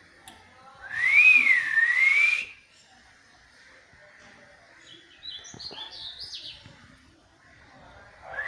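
A pet parrot whistling: about a second in, a loud whistle glides up, dips and rises again for about a second and a half, followed by softer high chirps around the middle and another rising whistle at the very end.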